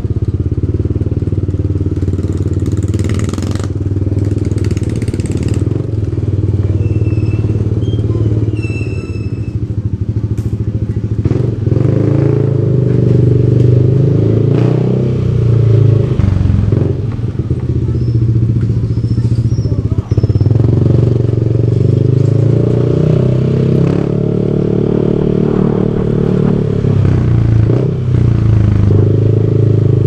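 Yamaha Aerox 155 scooter's single-cylinder engine running through an aftermarket HGM stainless exhaust with the silencer insert fitted, heard while riding. It gets louder from about twelve seconds in.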